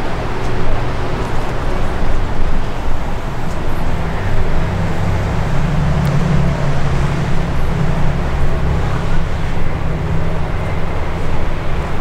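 Street ambience of road traffic: a steady hiss of passing cars, with a low engine rumble from a heavy vehicle that grows louder about four seconds in and keeps running.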